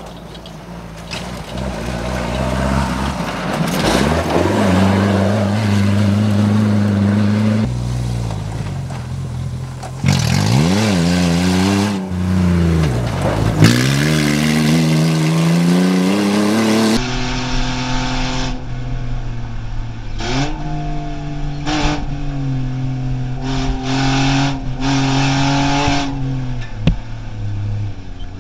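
Off-road rally cars driven hard on dirt tracks: the engines rev, rising and falling in pitch as they pass close by. From about two-thirds of the way in, one engine is heard from inside the cabin at speed, with short dips in its note.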